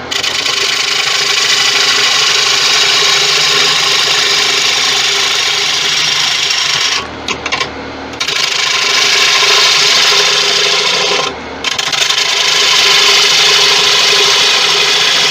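Bowl gouge cutting into a large spinning tiger wood bowl on a wood lathe: a loud, steady shearing hiss of the cut over the lathe's hum. The cut breaks off briefly about seven seconds in and again near eleven and a half seconds, where the tool leaves the wood.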